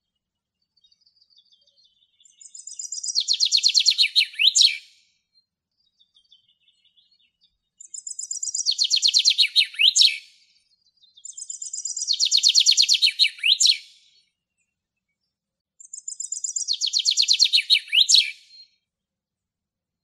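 Common chaffinch singing four song phrases. Each is a rapid run of repeated notes stepping down in pitch and ending in a quick flourish, with faint soft notes in the gaps between.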